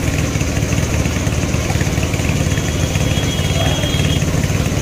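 A motor runs with a steady, fast low chugging, and a paint spray gun hisses faintly over it while it sprays a car fender.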